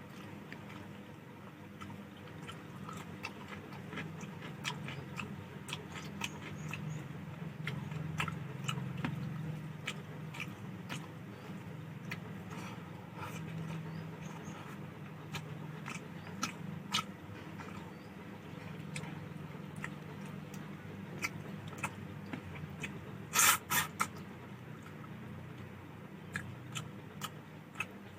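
Close-up eating sounds: a person chewing a mouthful of rice and fish curry, with many small wet mouth clicks and smacks over a low murmur, and a sharper, louder click near the end.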